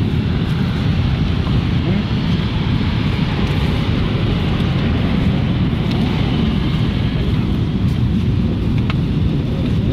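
Motorcycle engines running in a convoy, under steady heavy wind noise on the microphone.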